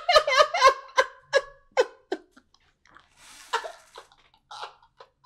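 A man laughing hard: a run of short bursts that grow weaker over the first two seconds, then breathier laughs with gasps.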